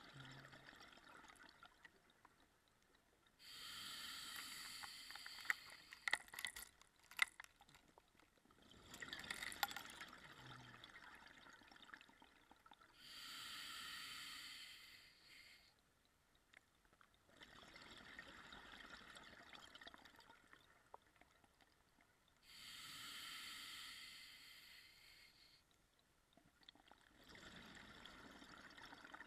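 Scuba diver breathing through a regulator underwater: three slow breath cycles about nine seconds apart, each a loud hissing breath followed by quieter gurgling and crackling of exhaust bubbles.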